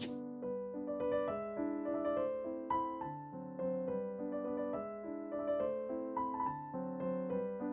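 Background piano music: a steady run of single notes in a repeating figure.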